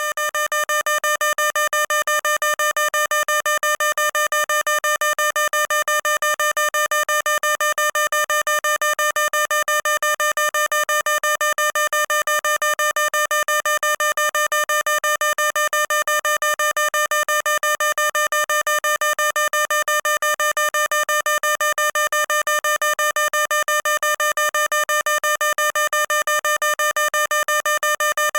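Electronic fire alarm sounder giving one loud, unchanging tone that pulses rapidly and evenly without a break.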